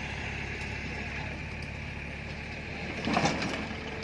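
Heavy diesel engine running steadily, with a brief louder knock or clatter about three seconds in.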